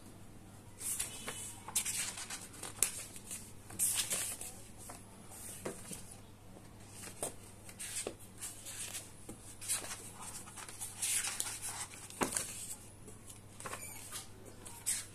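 Paper pages of a thick book being flipped and riffled by hand: repeated short rustling swishes at irregular intervals, over a faint steady low hum.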